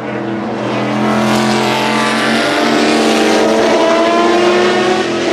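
Race car engine sound effect: a loud, steady engine drone holding one pitch.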